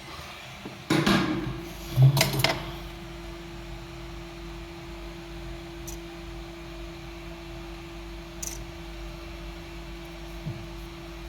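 Objects clattering on a work surface in two short bursts about a second and two seconds in, then a steady hum carries on underneath with a few faint ticks.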